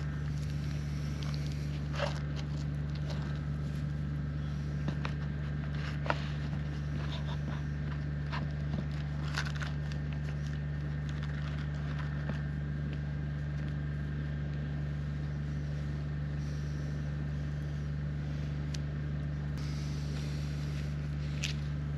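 A generator running steadily, a constant low hum made of several steady tones. Over it come scattered light clicks and taps as buns, patty and plates are handled close to the microphone.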